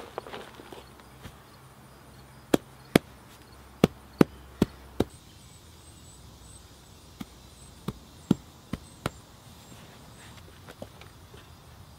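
Sharp knocks of hands patting soil down by hand: six over about two and a half seconds, then a short pause and five more.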